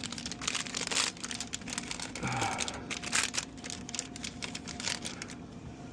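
Candy packaging being handled: rapid crinkling and small clicks of wrappers and boxes, which die away about five and a half seconds in.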